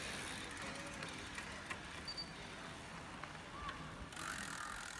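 Road racing bicycles riding past on asphalt, a steady hiss of tyres and air, with a louder rush as a rider passes close about four seconds in.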